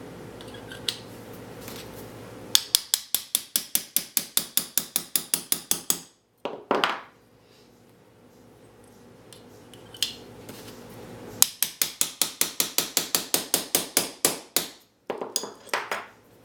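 Small hammer tapping out a tight pin from a High Standard R109 .22 revolver's frame in two quick runs of light, even strikes, about six a second for roughly three seconds each. Each run is followed by a short scraping sound.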